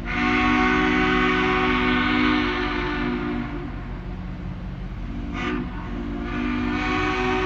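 Diesel locomotive's multi-chime air horn sounding for a grade crossing: a long blast, a short one about five seconds in, then another long blast starting near the end. A low engine rumble runs underneath.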